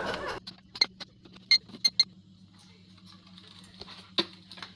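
A few short, sharp plastic clicks from handling a small folding drone and its remote controller, over a faint steady low hum.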